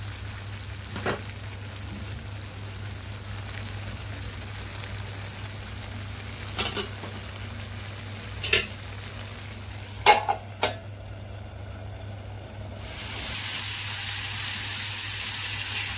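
Sliced onions, cashews and almonds simmering and sizzling in a little water in a nonstick pan as the water cooks off, with a spatula knocking against the pan a few times while stirring. The sizzle grows louder about 13 seconds in.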